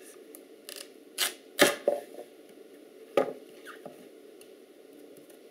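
Chef's knife cutting through a peeled sweet potato and knocking down onto a bamboo cutting board: about four short, sharp knocks, the loudest about a second and a half in and another about three seconds in.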